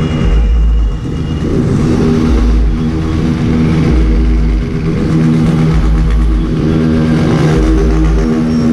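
Motorcycle engines running on the move, the nearest bike's engine note rising and falling a few times with the throttle, with wind rumbling in gusts on the microphone.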